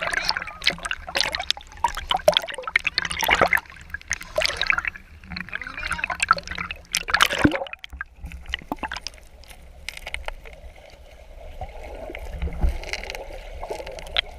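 Water splashing in a waterfall stream with voices, then, from about eight seconds in, a softer steady rush and gurgle of running water.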